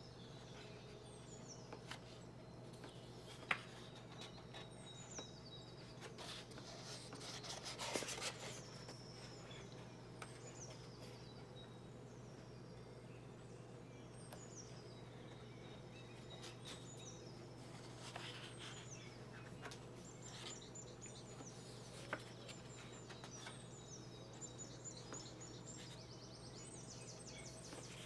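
Birds chirping faintly in the background over a steady low hum, with the rustle of large paper book pages being turned, loudest about eight seconds in and again around eighteen seconds.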